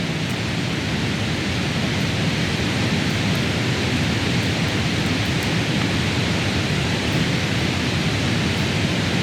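Steady rushing roar of a nearby waterfall, an even unbroken wash of water noise.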